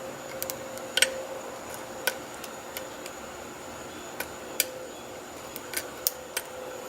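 Small sharp metallic clicks and ticks, irregularly spaced, from a steel lock pick working the pin stacks of a rim cylinder under heavy turning tension as pins set.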